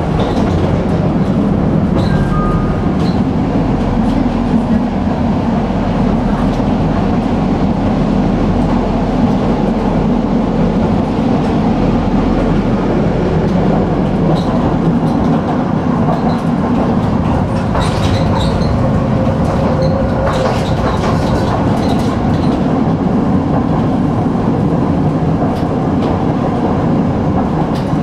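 Tram running along the track: a steady rumble of wheels on rails, with a cluster of clicks and knocks about two-thirds of the way in.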